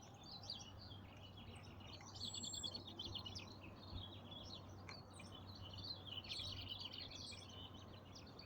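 Dawn chorus of many songbirds chirping and trilling at once, short overlapping calls with no pause.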